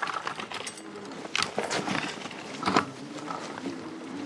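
Fat-tyre hub-drive e-bike rolling over rough, frozen dirt and gravel: tyre crunch with scattered knocks and rattles from the bumps. A faint steady hum comes in about halfway through.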